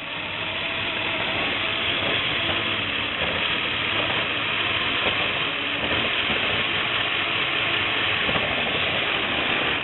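Electric motors of a LEGO Technic motorized bulldozer whining while its plastic gears and tracks grind and rattle under load as it pushes against another bulldozer. The noise stays steady and stops abruptly near the end.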